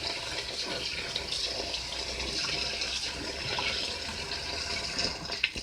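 Running tap water splashing into a bowl as soaked glutinous (sticky) rice is rinsed until the water runs clear, with a few faint clicks. It stops abruptly near the end.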